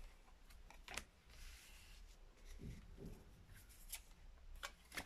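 Faint handling of tarot cards on a tabletop: a card is drawn and laid down, with a few soft taps and slides, one about a second in and a couple more near the end.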